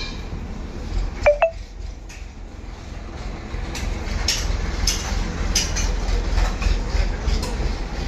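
Car engine idling roughly with a cylinder 3 misfire, a steady low rumble. Two short falling chirps sound about a second in, and from midway sharp ticks come every half second or so.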